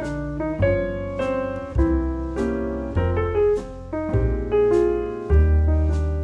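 Calm phone ringtone: a gentle piano-like keyboard melody, notes and chords struck about every half second and each left to fade, over a deep bass note renewed every couple of seconds.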